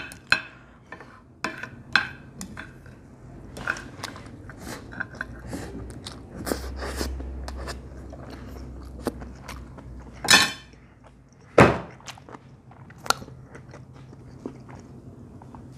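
Close-up eating of stir-fried instant noodles: chewing, with a spoon and chopsticks clicking and scraping against the plate.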